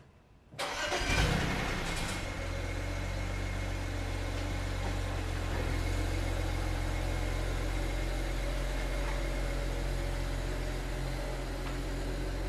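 BMW 335i wagon's N54 twin-turbo inline-six, fitted with a quiet custom exhaust (stock 325i rear section on the 335i front section), starting up with a brief rev flare about a second in, then settling into a steady idle.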